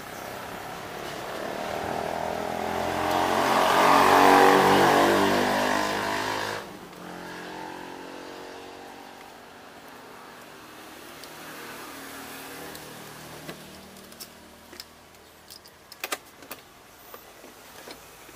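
A motor vehicle's engine passes close by, growing louder over the first four seconds and then dropping away abruptly about six and a half seconds in. Light plastic clicks and knocks follow near the end as wiring connectors and a scooter body panel are handled.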